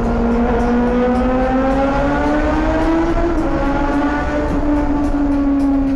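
Yamaha XJ6 Diversion F's 600 cc inline-four engine running through an aftermarket Black Widow exhaust while riding inside a road tunnel. The engine note climbs steadily for about three seconds, then eases back a little and holds steady.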